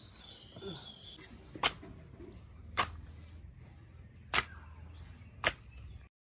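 Four soft slaps, about a second apart, as parottas are dropped one by one onto a banana leaf on the floor. Birds chirp in the background at the start.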